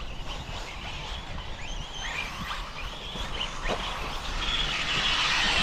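1/8-scale RC off-road racing buggies running around the track, their motors whining and rising and falling in pitch, louder near the end.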